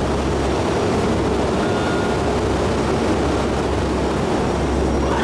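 Steady, loud drone of a C-130 Hercules's four turboprop engines heard from inside the cargo hold, with a deep hum underneath.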